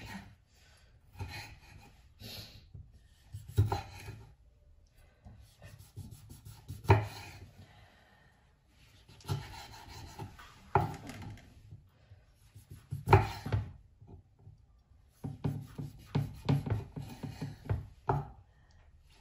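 Kitchen knife slicing cherry tomatoes on a wooden cutting board. Separate cuts knock on the board every few seconds, with scraping between them, then a quick run of strokes near the end.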